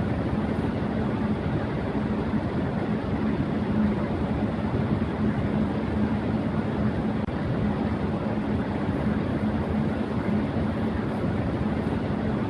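Electric fan running at high speed: a steady rush of air with a constant low hum underneath.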